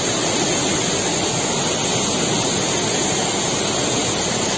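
Fast, turbulent muddy floodwater rushing in a torrent, making a loud, steady rush of water.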